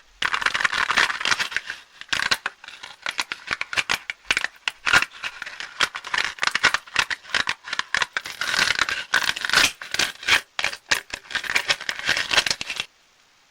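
Close-up crinkling and crackling of plastic candy wrappers being handled and torn open, a dense run of sharp crackles that stops abruptly shortly before the end.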